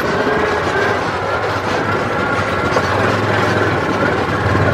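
A vehicle driving across rough pasture: the engine running under a steady rumble, with the rattle and clatter of the body over the ground.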